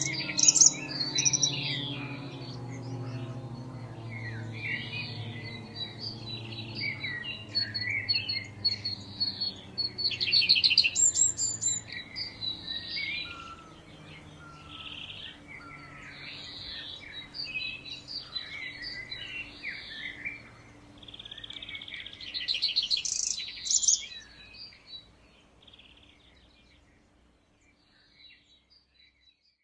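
Federal Signal 2001-DC siren winding down at the end of its attack signal, its tone sliding slowly lower and fading away over about 25 seconds. Birds chirp and trill loudly over it.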